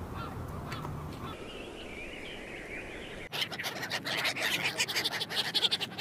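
A large flock of ducks quacking, many overlapping calls in a dense, loud clamour. It starts abruptly about three seconds in, after a quieter stretch of scattered bird calls.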